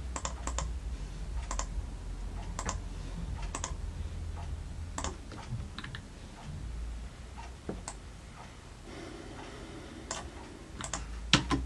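Irregular clicks of a computer mouse and keyboard, short and scattered, over a steady low hum; two sharper clicks come near the end.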